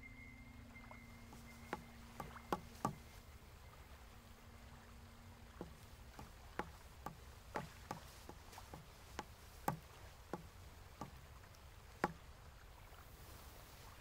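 Footsteps on a wooden plank walkway: a string of light, hollow knocks, irregularly spaced at about one or two a second, over a faint low background.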